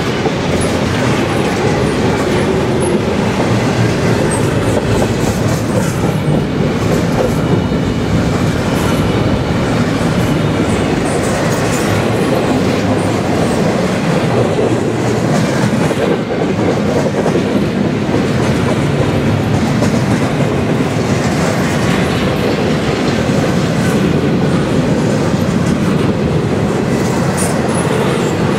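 Double-stack intermodal container well cars of a freight train rolling past close by: a steady, loud rumble and clatter of steel wheels on the rails, with a faint high wheel squeal here and there.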